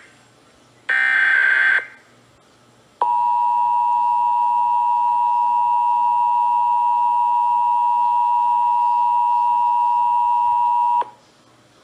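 Emergency Alert System audio. First comes a short digital data burst about a second in, the end of the previous test's end-of-message data. Then, about three seconds in, the EAS two-tone attention signal starts and holds steady for about eight seconds before cutting off abruptly, announcing the next Required Monthly Test.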